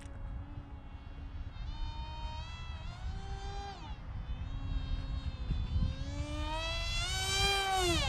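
Electric motor and propeller of a small 3D-printed RC plane whining in flight, its pitch rising and falling with the throttle. It grows louder in the last couple of seconds, then drops sharply in pitch as the plane passes close by.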